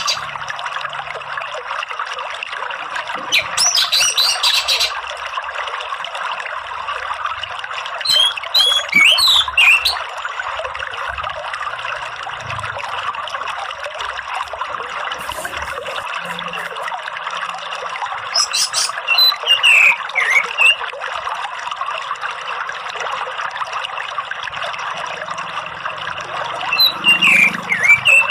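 Orange-headed thrush calling in four short bouts of rapid chattering mixed with whistled phrases, over a steady rush of running water.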